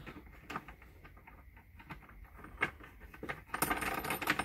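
Small metallic clicks and clinks of a steel nut being handled and turned on a bent 3/8-inch all-thread rod, scattered at first and coming thicker near the end.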